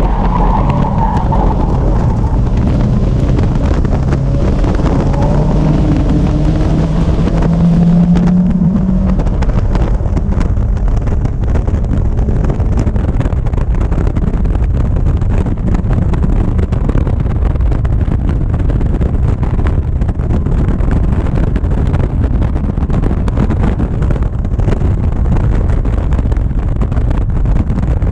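Caterham Seven Academy race car's Ford 1.6 Sigma four-cylinder engine heard from the open cockpit, pulling hard out of a bend with its pitch rising. From about nine seconds in, wind buffeting on the open cockpit at speed covers most of the engine.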